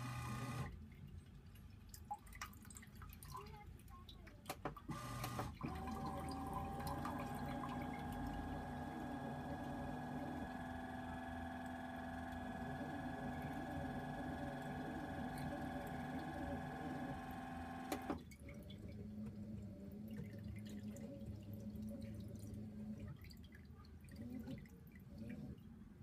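Leftover wash water draining and dripping out of an LG Mini Turbo Wash demo washing machine through its front drain flap. The machine's small motor hums steadily from about five seconds in and cuts off suddenly about two-thirds of the way through.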